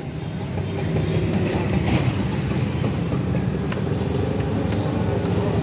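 A motor vehicle engine running steadily at idle, a low even rumble, with a couple of faint light clicks.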